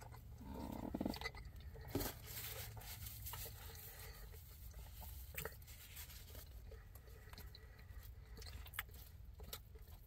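Faint chewing of a mouthful of fries, with a short hummed "mm" about half a second in and a few light clicks of a fork against a plastic food tray.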